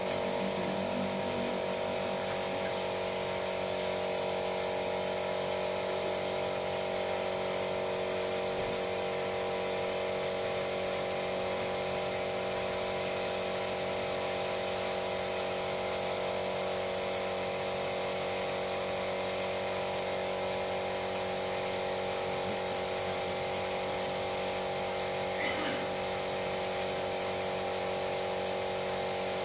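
A small electric motor runs steadily at one unchanging pitch, a hum made of several tones.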